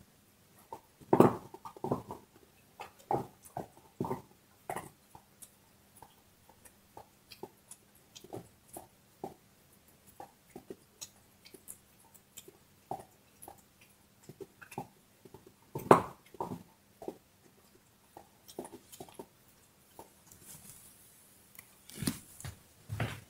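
A dog gnawing on a large bone, with irregular wet crunches and cracks of teeth on bone, spaced unevenly with short pauses. The loudest crunches come about a second in and again around sixteen seconds.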